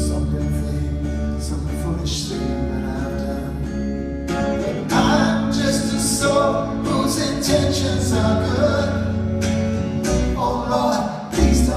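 Live band music with singing: sustained chords over a steady bass line and regular sharp strokes.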